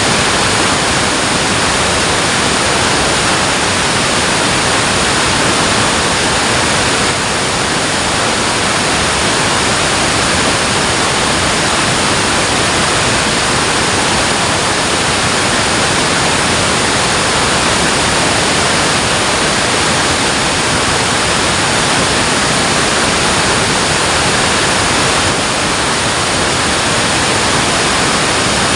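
Water rushing through a dam, a loud, steady roar of falling water that does not change.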